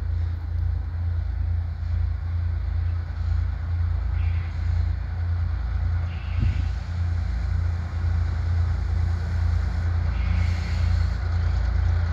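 Steady low diesel rumble of two ALCO RSD-16 locomotives approaching at the head of a freight train, growing slightly louder, with a single brief thump about halfway through.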